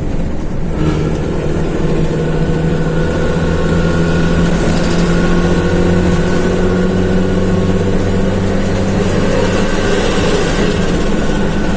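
Hino AK bus's diesel engine pulling under load, heard from inside the cabin. About a second in it picks up, and its pitch climbs slowly as the bus gathers speed.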